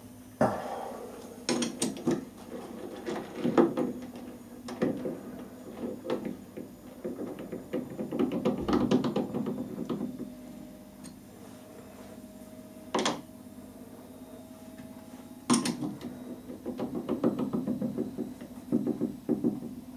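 Steel bar knocking and scraping against the jaws of a three-jaw lathe chuck as it is seated by hand, with the chuck key clicking and rattling as the jaws are closed on the bar. Irregular metallic knocks and short rattles, with two sharper knocks in the second half.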